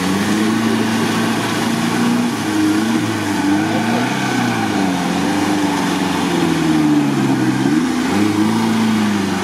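Suzuki Samurai's engine revving up and down again and again under heavy load as it churns through deep, sticky swamp mud.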